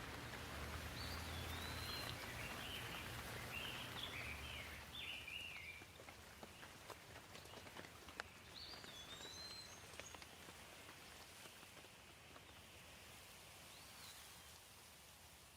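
Steady rain ambience with a bird chirping a run of short notes over the first few seconds and again briefly about eight seconds in; the rain grows quieter after about six seconds.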